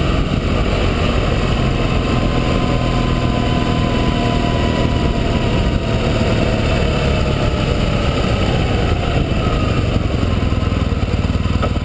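Motorcycle engine running under way, with heavy wind noise on the bike-mounted camera. The engine note falls gradually over the last few seconds as the bike slows.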